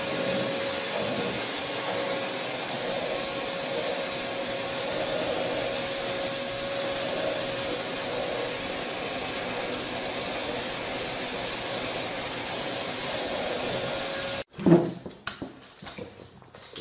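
Steady rushing noise of a running motor-driven machine with a constant high whine, cutting off suddenly about fourteen seconds in; a few scattered short sounds follow.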